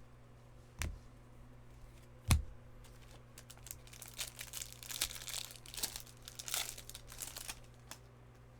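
Crinkling and tearing of a trading card pack wrapper being handled and ripped open, after two thuds on the table, the second one louder.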